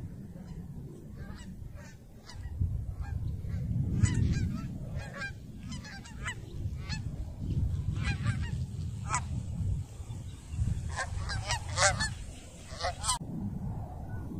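A flock of geese honking, many short calls overlapping at an uneven pace and stopping abruptly near the end. Wind rumbles on the microphone underneath.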